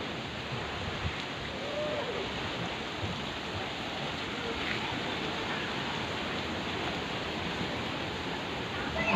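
Steady rush of flowing spring-pool water, even and unbroken, with a faint distant voice briefly heard about two seconds in.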